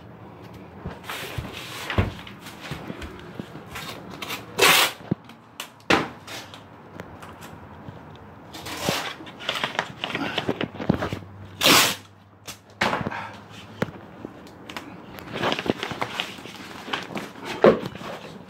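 Irregular bursts of rustling and scraping with a few sharp knocks, from masking kitchen cabinets with plastic sheeting and tape.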